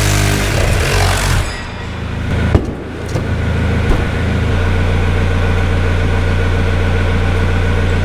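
An engine running steadily at a low hum. A loud hiss over it stops about a second and a half in, and two sharp knocks follow.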